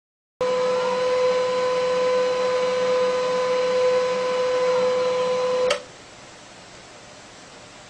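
Printer running with a steady mechanical whine, stopping with a click about five and a half seconds in, leaving only a faint hum.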